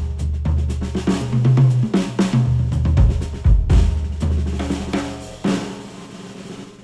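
Drum-driven instrumental music with kick, snare, hi-hat and cymbals over a bass line, played through a HIFIMAN Edition XS planar-magnetic headphone and picked up by microphones at the earcups. The beat thins out and fades for the last second or so.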